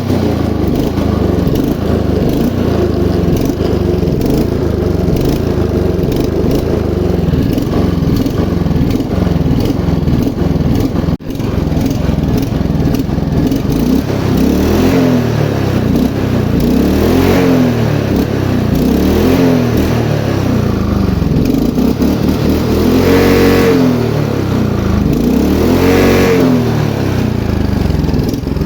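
Einhell Royal 46s petrol lawn mower engine running, its pitch rising and falling every couple of seconds.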